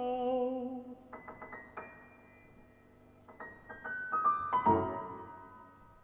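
A tenor holds a sung note that ends about a second in. A solo piano then plays scattered high notes, builds to a louder chord about five seconds in, and lets it ring away.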